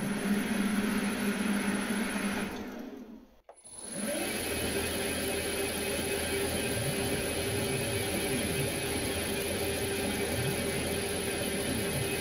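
CNC-converted metal lathe's VFD-driven spindle motor running with a steady hum, breaking off about three and a half seconds in. Then the spindle runs again while the stepper motors whine up and down in pitch as the program moves the tool.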